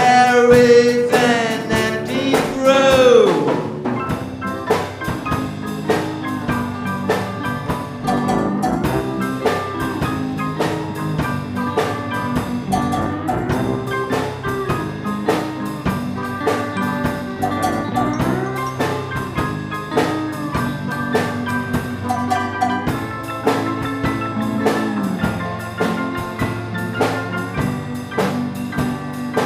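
Instrumental passage of a rock ballad: a drum kit keeps a steady beat under bass and a bell-like glockenspiel melody. In the first few seconds a held note slides downward and dies away.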